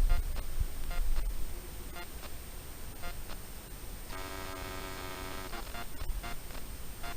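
Animal calls: a short pitched call repeated about once a second, with a longer, drawn-out call of about a second and a half in the middle.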